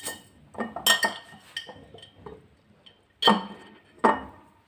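A glass jar clinking and knocking a few times, each strike ringing briefly, as salted lemon quarters are packed into it.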